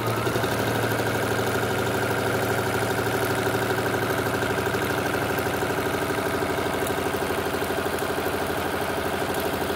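Juki computerised sewing machine starts up and runs at a steady speed, its motor humming under a fast, even stitching rhythm as it sews a decorative stitch pattern.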